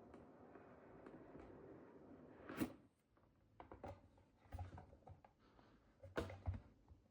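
Packaging being handled during an unboxing: one sharper knock about two and a half seconds in, then a scatter of soft knocks, taps and rubs.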